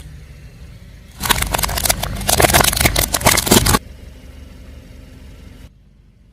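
A car tyre rolling over and crushing something crunchy: a dense run of crackling and snapping lasting about two and a half seconds that cuts off suddenly, over the low running of the car's engine.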